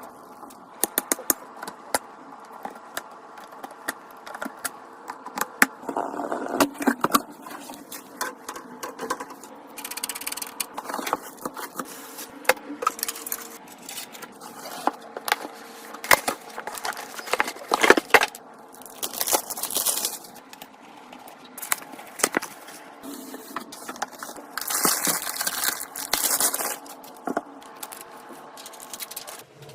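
Computer parts being handled and fitted during a PC build: irregular clicks, knocks and scrapes of hard plastic and metal parts, with a few short bursts of rustling.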